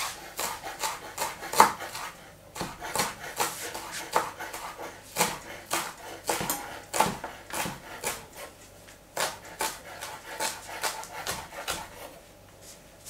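Chef's knife chopping parsley on a wooden cutting board: a run of sharp knocks of the blade against the board, two or three a second, dying away near the end.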